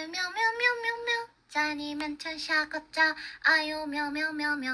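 A young woman's high, childlike sing-song voice performing aegyo, the Korean-style cute act, in three drawn-out phrases with long held notes.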